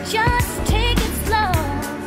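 Background pop music with a steady beat and a wavering lead melody.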